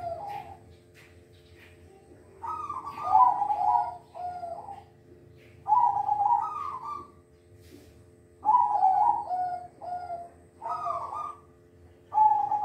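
Zebra dove (perkutut) cooing: four bouts of quick, warbling coo phrases, each lasting one to three seconds and coming about every three seconds.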